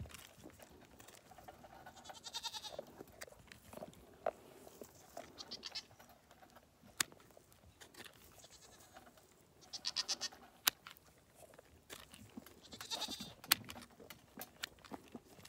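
Goat bleating three or four times, with several sharp snips of hoof trimming shears cutting through overgrown hoof wall between the calls.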